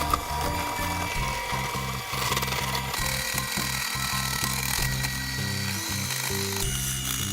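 Electric mixer running steadily, creaming butter and sugar for cookie dough, with background music playing along.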